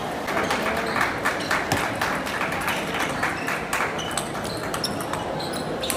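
Table tennis rally: a quick, irregular series of sharp clicks as the ball strikes the rackets and bounces on the table, over the steady murmur of a crowded hall.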